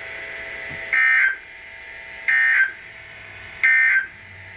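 Three short screeching data bursts from a NOAA Weather Radio broadcast, about a second and a half apart, over a low hiss: the EAS/SAME end-of-message code that closes the weekly test alert.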